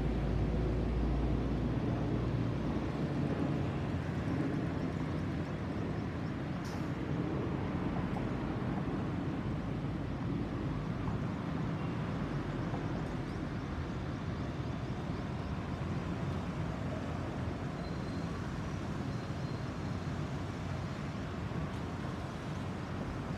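Boeing 737-800 airliner's CFM56-7B turbofan engines heard from below after it has passed overhead: a steady low jet rumble that slowly fades as the aircraft draws away.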